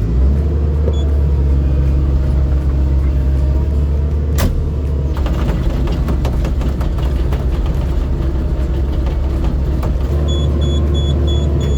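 Old excavator's diesel engine running steadily while the machine is moved, with a single clank about four seconds in. Near the end, a high warning beeper starts pulsing, about three beeps a second.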